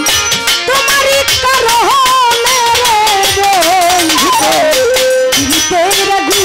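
A woman singing a Bengali baul folk song live into a microphone, her melody wavering and gliding, over steady drum strokes and sustained instrumental notes.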